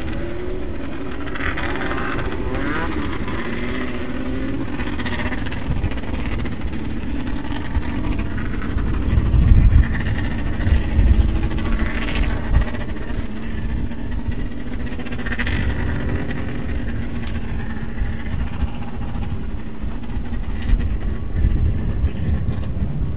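Off-road race buggy engines running around the track, their pitch rising and falling. Louder low rumbles come through about ten to twelve seconds in.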